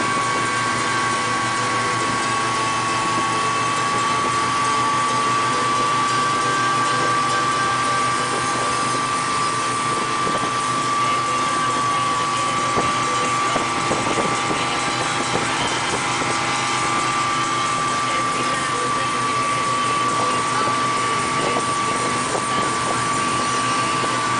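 Tow boat's engine running at a steady speed, with a constant high whine over a steady rush of wind and churning wake water.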